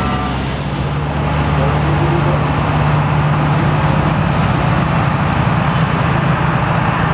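Diesel engine of a heavily loaded truck running steadily at one pitch, with road traffic noise around it.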